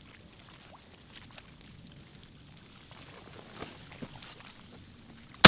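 Faint outdoor background with a few light ticks, then a single shotgun blast right at the very end.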